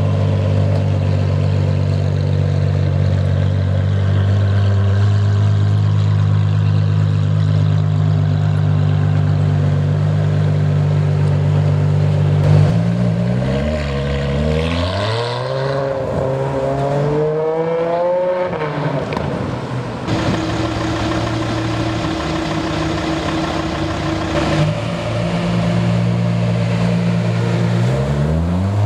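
Ferrari 599 GTO's V12 engine idling with a steady low note, then accelerating hard about twelve seconds in, its revs climbing in several rising sweeps broken by quick gear changes. It settles to a steady note again, and the revs start rising once more at the very end.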